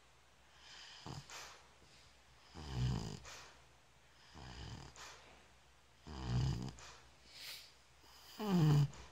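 Snoring in a slow, even breathing rhythm: a rattling snore roughly every three and a half seconds with softer breaths between. The loudest snore comes near the end and drops in pitch.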